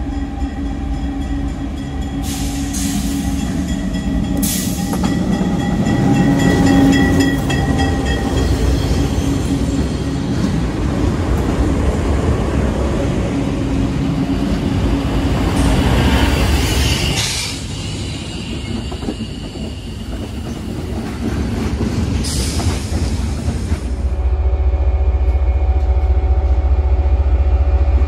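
A train rolling past on the rails, with wheels clattering over the track and brief flares of wheel noise, and a heavier low rumble over the last few seconds.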